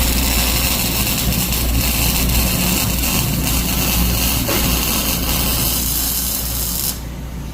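Robotic MIG welding arc crackling steadily as it lays a bead, then cutting off suddenly near the end, over a steady low machine hum.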